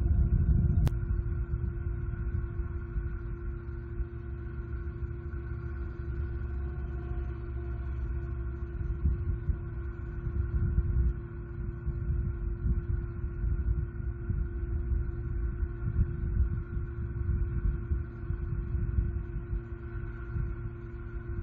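Uneven low rumble of wind buffeting an outdoor microphone, over a steady faint hum, with a single sharp click about a second in.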